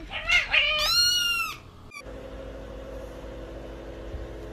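A cat meows once, a drawn-out, high call lasting over a second. A faint steady hum follows.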